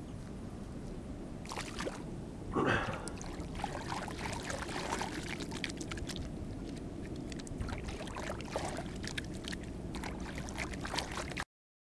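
Hands splashing and rubbing in shallow pond water, rinsing off: a run of small splashes and drips, with one louder splash about two and a half seconds in. The sound cuts off suddenly near the end.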